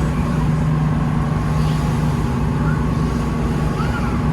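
A tour boat's engine running with a steady, even drone, heard from aboard, with faint voices in the background.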